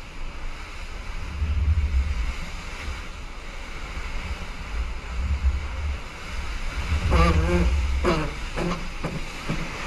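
Wind buffeting the microphone in gusts over a steady rush of water from a sailing boat under way. A brief voice calls out about seven seconds in.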